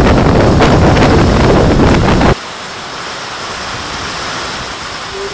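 Strong wind buffeting the microphone, a loud low rumbling gusty noise, cut off abruptly a little over two seconds in and replaced by a much quieter steady hiss of open-air wind ahead of a storm.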